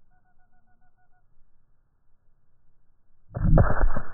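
A single loud shot from a .270 rifle about three seconds in, rumbling on for most of a second before it fades.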